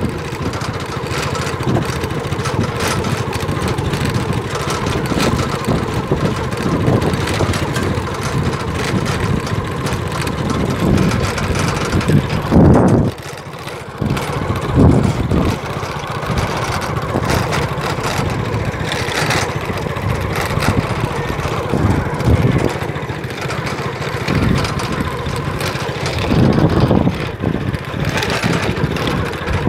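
A small vehicle engine running steadily while travelling over a rough track, with a few short thumps from bumps.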